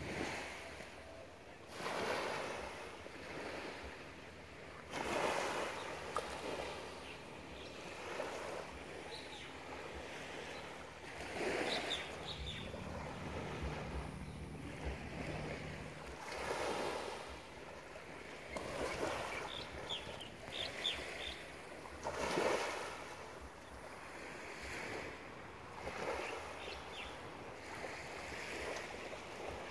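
Small waves lapping onto a sand beach, each wash swelling and fading every few seconds, with a few short faint high chirps now and then.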